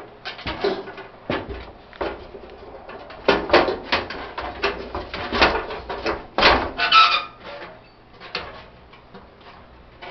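Metal clanking and scraping as the burner assembly of a Coleman 413-H camp stove is worked loose and pulled out of the stove's sheet-metal case. There are irregular knocks throughout, and a short squeak about seven seconds in.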